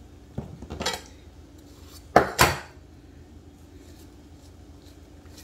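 Knocks and clatter of ripe plantains and their peels being handled on a kitchen countertop during peeling: two light knocks about half a second and a second in, then two louder ones close together a little after two seconds.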